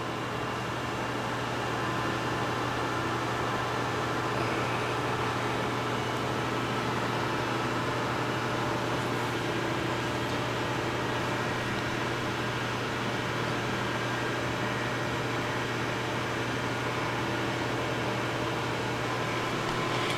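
Steady mechanical hum with a low drone and faint steady tones above it, typical of a fan or machine running in a workshop.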